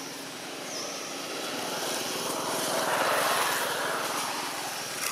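A passing vehicle: a rushing engine noise that swells to a peak about three seconds in, then fades away.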